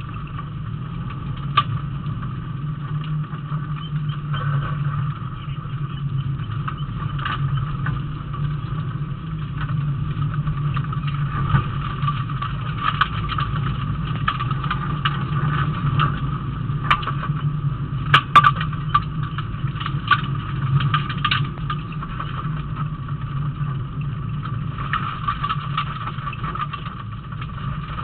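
Rally car engine running steadily under load, heard from inside the cabin, with scattered sharp knocks and clatters, a cluster of them about two-thirds of the way through.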